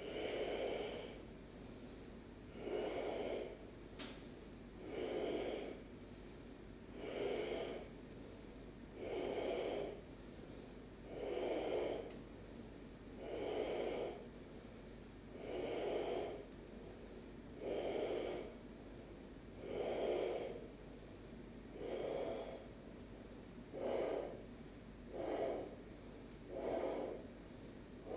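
Loud, rhythmic breathing through a constricted throat during ashtanga yoga practice, typical of ujjayi breath: about one breath every two seconds, each about a second long and with a snoring-like rasp, coming a little quicker near the end. A single sharp click about four seconds in.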